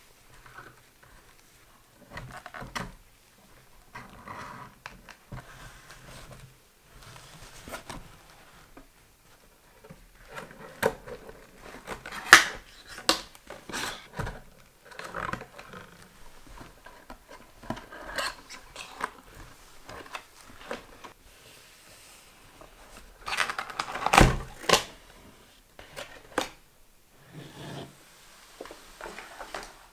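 Close-up unboxing handling: a cardboard box and its white card insert scraping and rustling, and wire twist ties being worked loose, in scattered bursts of crinkles and clicks. The loudest flurry comes about two-thirds of the way through and ends in a dull thump.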